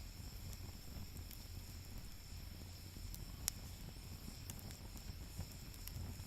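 Wood fire crackling in a campfire pit, with scattered small pops and one sharper pop about halfway through.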